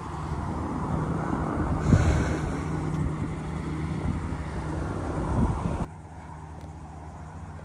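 Wind buffeting the microphone in low rumbling gusts over a steady low hum; the wind noise cuts off abruptly about six seconds in, leaving the quieter hum.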